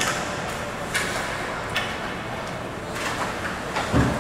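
Ice hockey play: skate blades scraping on the ice, with several sharp clacks of sticks and puck. A dull thud comes near the end.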